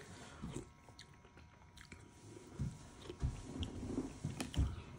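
Quiet eating sounds: a spoonful of fish soup taken and chewed, with soft mouth noises in the second half and a few faint clicks of a metal spoon against a plastic tub.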